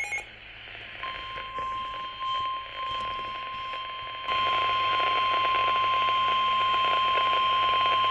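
NOAA Weather Radio warning alarm tone: one steady, unbroken tone of about 1 kHz (the 1050 Hz alert tone) through the radio's hiss. It starts about a second in and jumps louder about four seconds in. The tone signals that a warning broadcast follows, here a severe thunderstorm warning.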